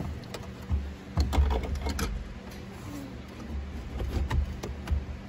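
Scattered plastic clicks and low knocks of a Jeep Wrangler's radio head unit being handled and shifted in its dash opening, with a cluster of clicks about one to two seconds in.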